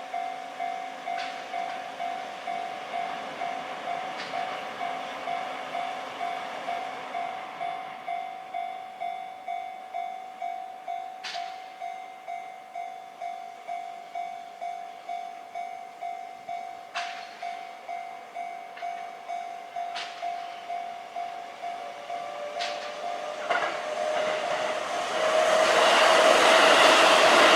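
Japanese level-crossing alarm bell ringing about twice a second. About 24 seconds in, a Sanyo Electric Railway 5000-series electric train comes up and runs over the crossing, and its rising noise drowns the bell near the end.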